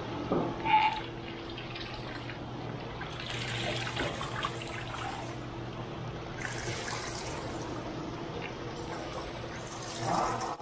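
Water running and splashing in a hands-on water-play exhibit, with louder splashes now and then over a steady low hum.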